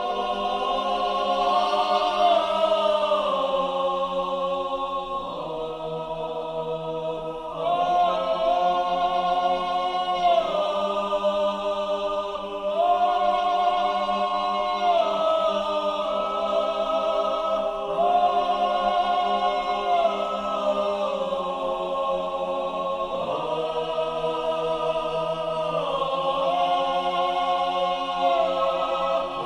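Background music: a choir singing slow, held chords that change every two or three seconds over a steady low drone.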